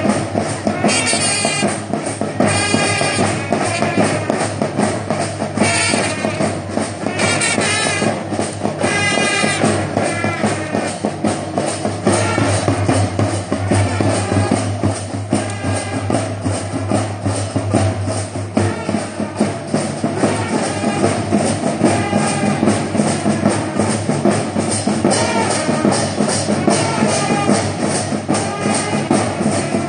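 School marching band playing a march while marching, drums keeping a steady beat under the band's melody.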